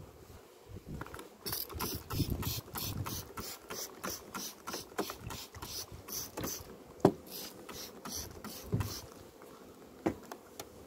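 Hand trigger sprayer pumped in quick spritzes over a frame of wax foundation, about four short hissing squirts a second in two runs, with a few sharp knocks from handling the hive woodwork.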